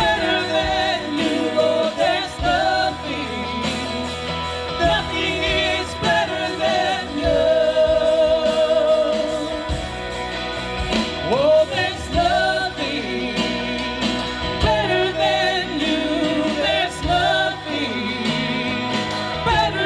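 Gospel worship music: sustained singing with vibrato over a full band accompaniment.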